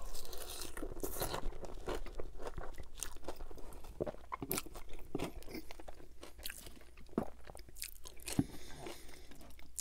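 Close-miked chewing of a mouthful of poutine (gravy-soaked fries and cheese curds): irregular wet smacks and clicks of the mouth, one after another.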